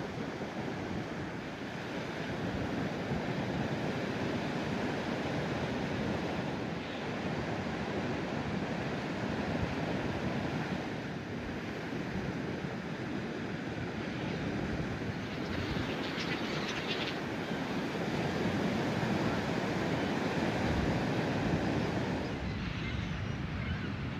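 Ocean surf washing steadily onto the beach, rising and falling in slow swells, with wind buffeting the microphone.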